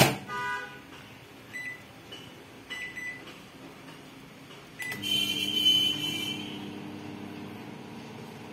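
LG microwave oven being set: a click at the start, then several short keypad beeps as buttons are pressed. About five seconds in the oven starts running with a steady low hum.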